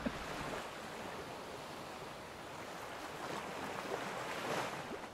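Sea water washing and rushing around a yacht under sail: a steady hiss of waves that swells a little near the end.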